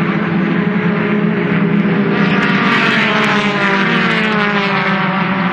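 Formula Ford single-seater race cars running hard, their engines a loud, steady drone, with one car's engine note dropping in pitch as it passes close by about three to four seconds in.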